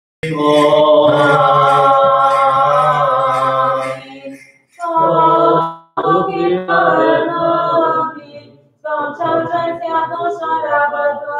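Unaccompanied Church Slavonic panikhida chant, sung in four phrases of long held notes with short breaks between them.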